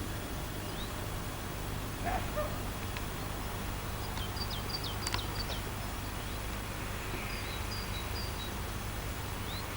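Small birds chirping: a run of short, quick high notes about four seconds in and another a few seconds later, over a steady low rumble.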